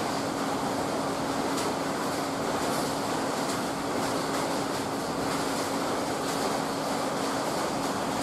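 Testex TY360A/B motorized wrap reel running, its hexagonal reel spinning steadily as it winds yarn into a skein: a steady rushing noise over a steady low hum.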